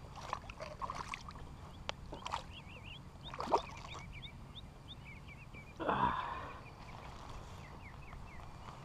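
Channel catfish thrashing and splashing in shallow water at the bank as it is landed by hand, with a few sharp splashes, the loudest about three and a half seconds in, and a louder rushing burst about six seconds in. A small bird chirps rapidly in the background.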